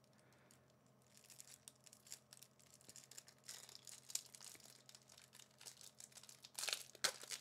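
Faint crinkling and tearing of a small trading-card booster pack's plastic wrapper being worked open by hand, with a louder rip near the end.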